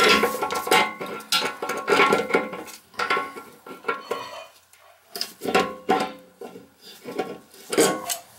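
Clinks, knocks and scrapes of old brass toilet fittings against porcelain, some strikes ringing briefly, with a short quieter pause about halfway through.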